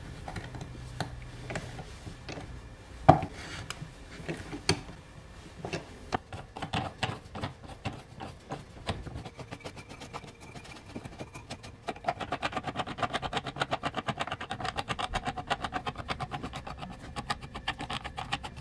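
Bench work with a hand tool: a few scattered knocks and taps, then from about six seconds in a quick run of rapid ticking strokes that turns denser and steadier about twelve seconds in.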